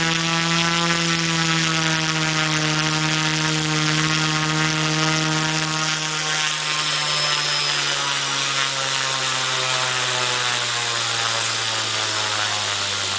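MikroKopter quadcopter's brushless motors and propellers, driven by BL-Ctrl 1.0 controllers, running with a steady buzzing hum. About halfway through the pitch begins to slide slowly down as the throttle is eased back and the propellers slow.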